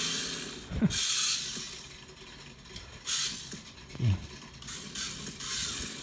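Small electric motor and plastic gearbox of a Bluetooth toy RC car whirring in about four short bursts as it is driven forward and back from a phone app.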